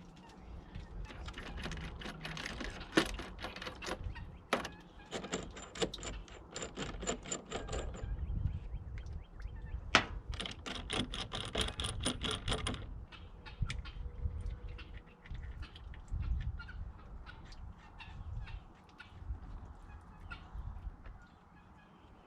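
Metal tools clinking and rattling on metal, in runs of rapid clicks with a light metallic ring, then fewer, quieter clicks from about 13 seconds in.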